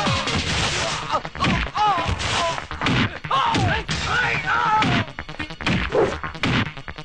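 Dubbed movie fight sound effects: a rapid series of punch and body-hit impacts with whooshes, mixed with men's shouts and cries.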